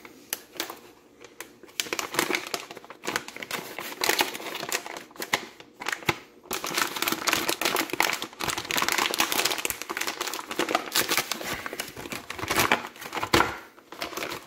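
Crinkling and rustling of a sterile medical supply package being handled and opened by hand: an irregular run of crackles, busier in the second half.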